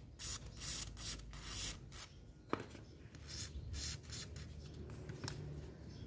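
Aerosol lubricant spray hissing out through a straw in several short bursts onto the seized gear-head screws of an old Makita angle grinder, to loosen them for disassembly. A single sharp click comes about two and a half seconds in.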